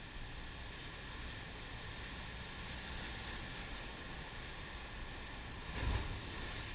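Ocean surf breaking and churning against rocks, swelling and easing, with one louder wave crash about six seconds in. Wind rumbles on the microphone underneath.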